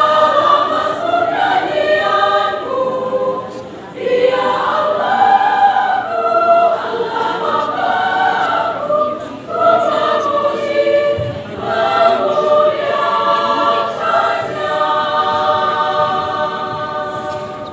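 Large women's choir singing, its phrases broken by short pauses, the sound fading near the end.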